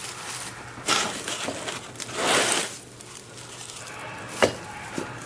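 Rustling of packaging as the fixture's parts are handled, in two longer swells, then two short sharp clicks or knocks near the end.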